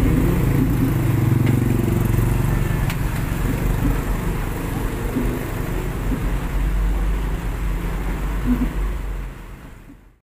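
Steady low rumble of a car driving through floodwater, heard from inside the cabin with water noise over it; it fades out near the end.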